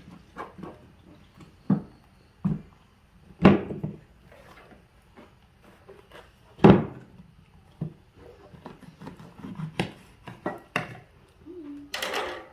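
Scattered sharp knocks and taps of things being handled, the two loudest about three and a half and six and a half seconds in, with a short rustling hiss near the end.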